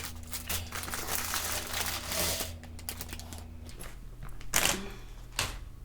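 Plastic Lego parts bag crinkling as it is torn open, busiest in the first two and a half seconds, then a few quieter rustles.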